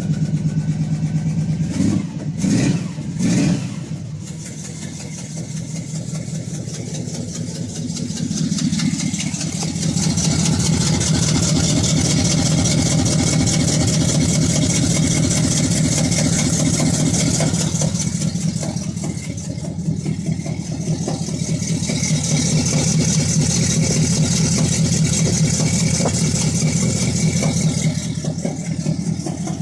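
Rebuilt Chevy 350 small-block V8 in a 1982 C10 running, blipped three times in quick succession about two to three seconds in. It then settles back to a steady idle that grows a little louder from about ten seconds in.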